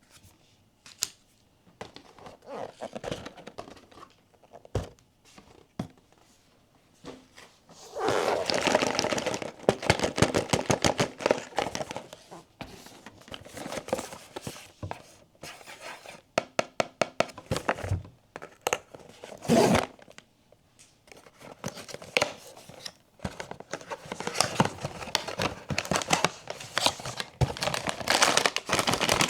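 Blind-box packaging being opened by hand: crinkling and tearing of foil and plastic wrapping, with many sharp taps and clicks in between. The rustling comes in two longer spells, one about a third of the way in and another near the end.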